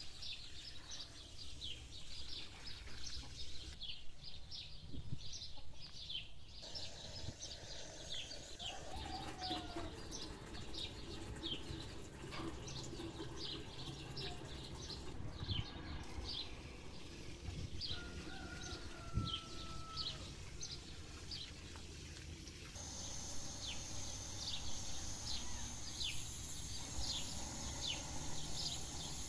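Small birds chirping: short, quick downward chirps repeated about once or twice a second, with a few lower whistled calls in the middle. A steady high hiss joins in for the last several seconds.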